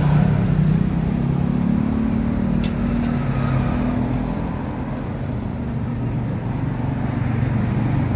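A motor vehicle engine running steadily, its pitch rising a little and then settling, with a sharp click about three seconds in.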